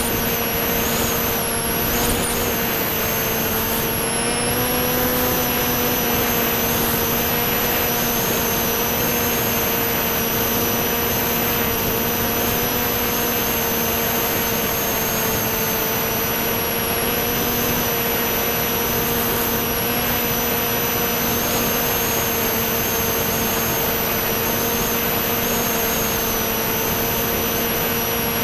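Electric motor and propeller of a C1 Chaser FPV flying wing, heard from the onboard camera and droning at a steady pitch with a high whine above it and a hiss of air. The pitch lifts slightly about five seconds in.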